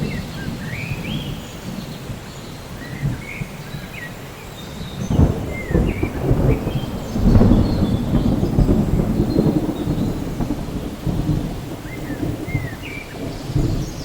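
Steady rain with rumbling thunder; a louder roll of thunder swells up about a third of the way in, stays strong for several seconds, then eases back. Short chirps, like small birds, sound now and then above the rain.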